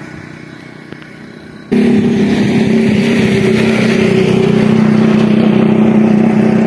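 An engine running steadily at a constant low pitch, cutting in abruptly a little under two seconds in and staying loud and even.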